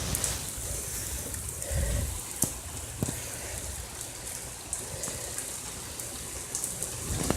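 Steady rain falling, with a low rumble swelling briefly about two seconds in and a couple of sharp taps a little after.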